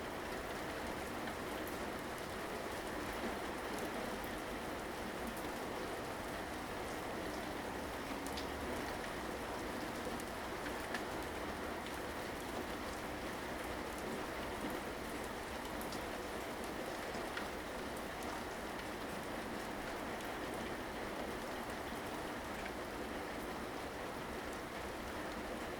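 Steady rain falling, an even hiss with scattered individual drops pattering on surfaces.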